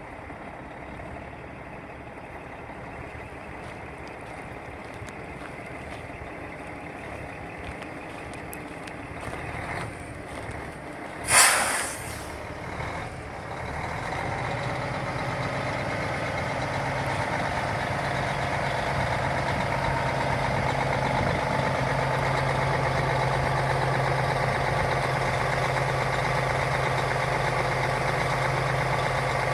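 2006 Peterbilt 379 semi truck idling steadily, with a single sharp hiss of air released from its air system about eleven seconds in. The idle grows louder through the second half.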